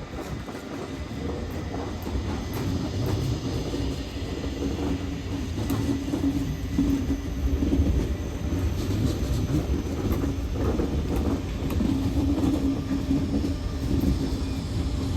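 DB Class 425 electric multiple unit running into the station, its wheels rumbling with scattered clicks over rail joints and points and a steady hum, growing slightly louder as it comes closer.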